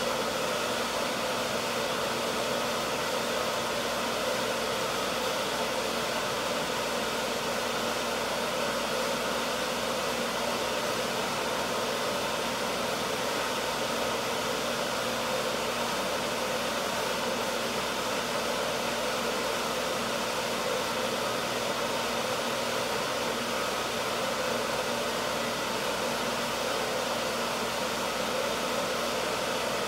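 Sprinkler system pump running: a steady hum with hiss that does not change.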